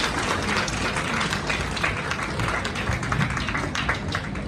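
Audience applauding, many hands clapping together over a murmur of crowd voices; the clapping thins out near the end.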